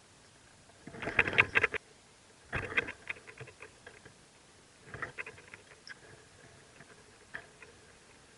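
Rustling and scratching in a baby mockingbirds' nest, in three short bursts of rapid scratchy clicks, the loudest about a second in, followed by a few faint ticks.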